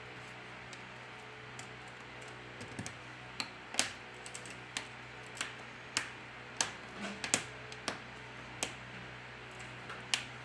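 Small, sharp clicks and taps of tools and parts being handled while a smartphone is put back together, about a dozen at an irregular pace, over a faint steady hum.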